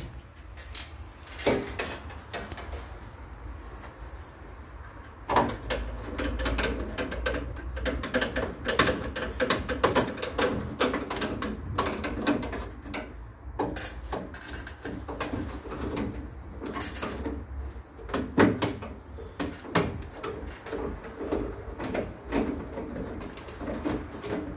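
Irregular clicks, clinks and knocks of tools and metal parts as a Viessmann Vitodens 100 combi boiler is taken apart to get at its main heat exchanger.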